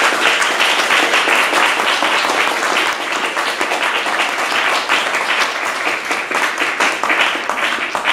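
Audience applauding: many hands clapping together, slowly dying down toward the end.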